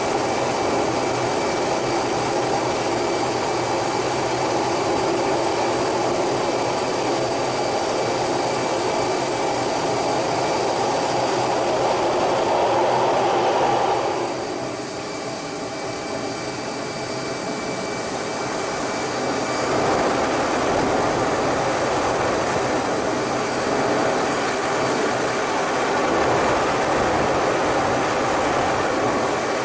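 Cockpit noise of an F-18 Hornet in display flight: a steady rushing roar of engines and airflow with faint high whines. About halfway through it drops away and sounds duller, then swells back to full strength some six seconds later.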